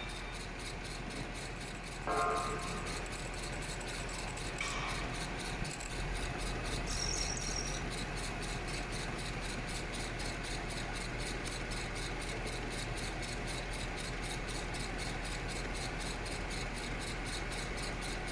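Machine-shop machinery running steadily: a constant mechanical hum with several held tones and a fast, even pulse. A short, louder, higher-pitched sound comes about two seconds in.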